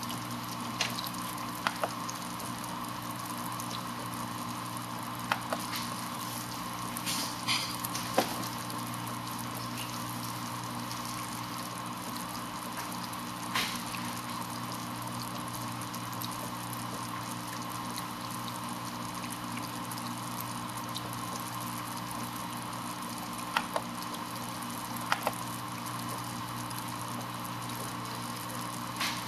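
12-volt water electrolysis cell running on a PWM drive: gas bubbling through the water over a steady electrical hum made of several fixed tones. A handful of sharp clicks are scattered through it.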